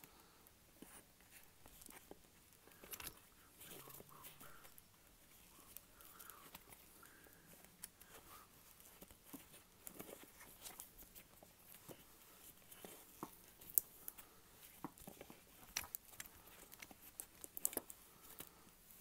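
Faint crackling and peeling of black electrical tape as it is pulled off the roll and wrapped around lamp wires, with scattered small clicks and the rustle of cloth work gloves.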